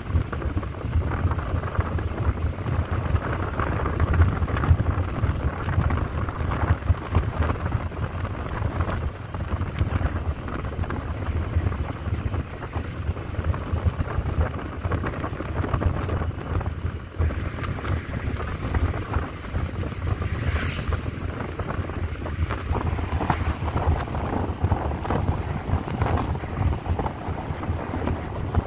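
Wind rushing and buffeting over the microphone of a phone carried on a moving motorbike, with the bike's engine and road noise underneath.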